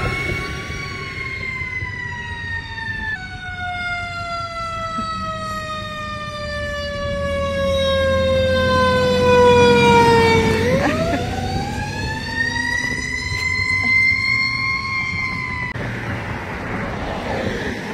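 Emergency vehicle siren wailing: one long tone slowly falling in pitch for about ten seconds, then sweeping quickly back up and holding before it cuts off near the end.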